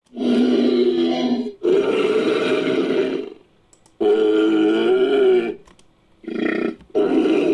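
Synthetic creature calls mixed from Styracosaurus sound effects and Sumatran rhinoceros sounds: a series of low, pitched roaring calls, each one to two seconds long, with brief silences between them and a shorter call near the end.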